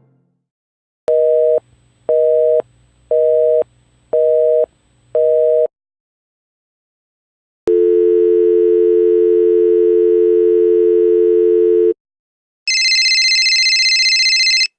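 Telephone busy signal: five short two-tone beeps about a second apart, then a steady telephone dial tone for about four seconds, then a brief high electronic tone near the end.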